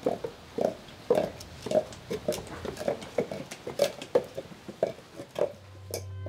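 Hollow wooden clops of a maiko's tall okobo platform clogs walking on stone paving, about two steps a second. No bells are fitted inside the clogs, so there is no jingle with the steps.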